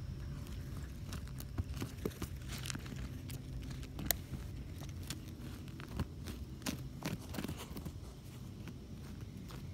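A dog nosing and pawing through dry dirt, twigs and pebbles close to the microphone: irregular scrapes, crunches and clicks of stones, the sharpest click about four seconds in.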